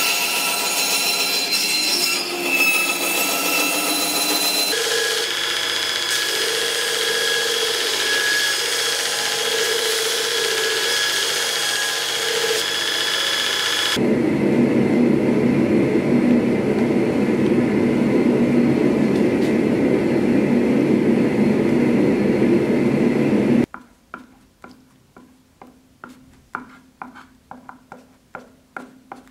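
A bandsaw runs and cuts wood, a steady machine sound with a high whine, for roughly the first fourteen seconds. It gives way to a louder, even grinding machine noise, which stops suddenly near the end, leaving only light rubbing strokes about twice a second.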